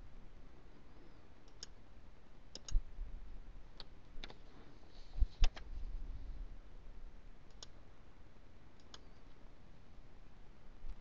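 Computer mouse buttons clicking: about eight faint clicks spread irregularly, some in quick pairs.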